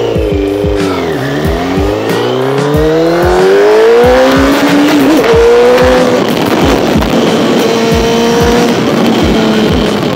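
Music with a heavy, evenly spaced bass beat, and a whining tone that dips, then climbs steadily over a few seconds before levelling off.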